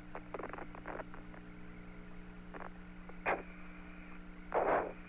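Steady hum of the Apollo 17 lunar-surface radio link, broken by a few short bursts of static, the loudest a little before the end.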